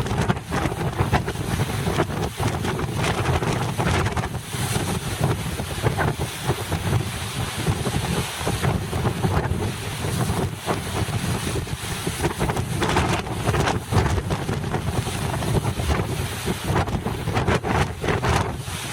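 Strong wind over a rough sea, buffeting the microphone in gusts with a heavy low rumble, and the surf of the choppy water beneath it.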